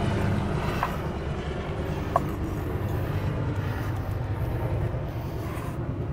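Helicopter passing overhead, a steady low drone of rotor and engine. A couple of faint clicks about one and two seconds in.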